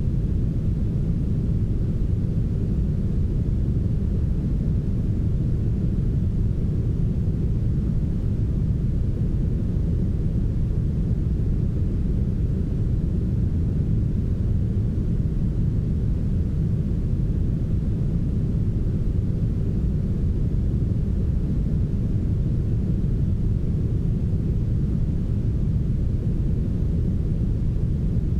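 Smooth brown noise: a steady, deep, muffled hiss, heavy in the low end with almost nothing bright on top, unchanging throughout.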